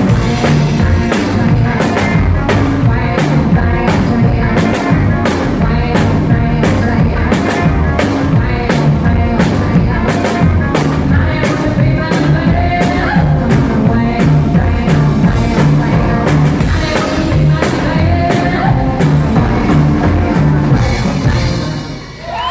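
Live rockabilly band playing, with a fast, driving drum kit beat, a moving bass line and electric guitar. The song comes to its final stop just before the end.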